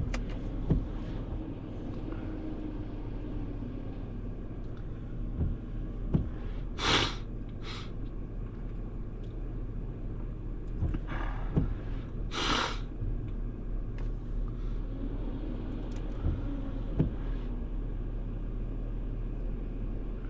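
Roll-off dumpster truck's engine idling, heard from inside the cab as a steady low rumble. Two short loud hisses break in, about a third of the way through and again a little past the middle.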